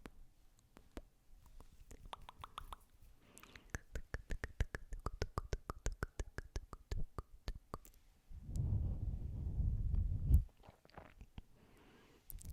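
Close-miked ASMR sounds: a run of quick, sharp clicks that thickens to about five a second midway. About eight seconds in comes a breath blown onto the microphone for about two seconds, ending in a sharp click and followed by a few softer clicks.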